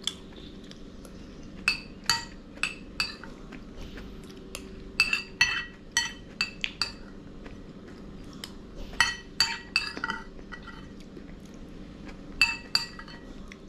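Metal cutlery clinking and scraping against a plate while eating, in several clusters of short ringing clinks with pauses between.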